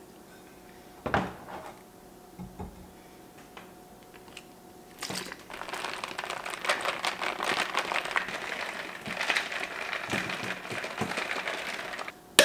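A knock about a second in, then a plastic shaker bottle shaken hard for about seven seconds: a dense, fast rattle with its contents sloshing.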